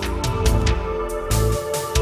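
Background music with a steady beat: electronic-style track with drum hits and sustained synth tones.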